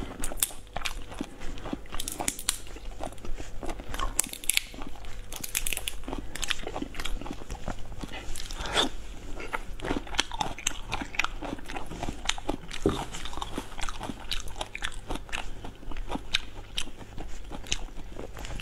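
A person biting, peeling and chewing shell-on marinated shrimp. The shells crack in many quick, irregular crunches.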